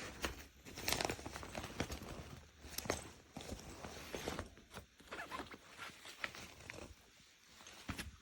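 Fabric travel backpack being handled: irregular rustling and soft knocks.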